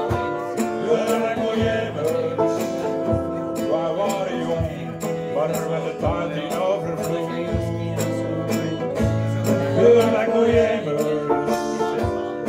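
Live acoustic band playing an instrumental passage: strummed acoustic guitars over a steady beat.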